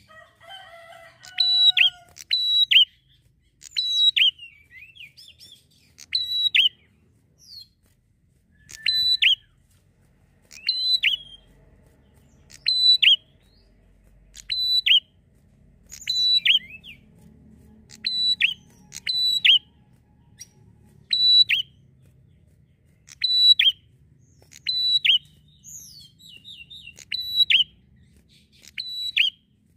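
Prinia (prenjak) singing: short, sharp, high chirping phrases repeated about every one to two seconds.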